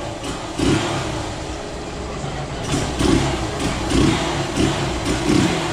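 Yamaha SZ motorcycle's single-cylinder engine running at idle and revved in several short throttle blips, pulling up cleanly without hesitating or sputtering now that the carburettor and ignition have been sorted.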